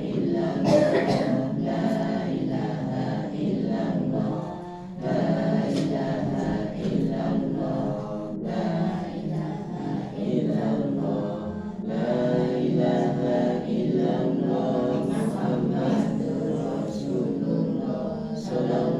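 Mosque congregation chanting dzikir together in unison, many voices in phrases a few seconds long.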